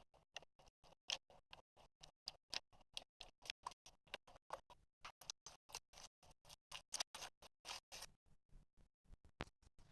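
Slime being squished and poked by hand, giving a rapid run of small wet clicks and pops, several a second, thickest and loudest around the middle.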